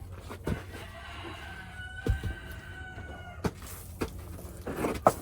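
A rooster crowing: one long, held call of about two seconds starting about a second in. A few sharp knocks fall around it, the loudest about two seconds in and near the end.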